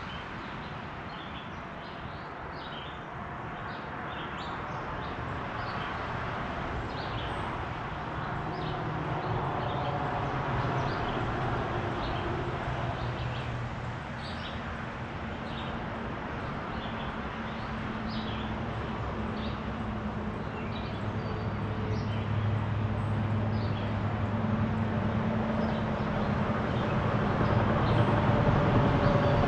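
Steady wash of distant road traffic with small birds chirping briefly now and then. A low engine drone builds and grows louder over the last few seconds.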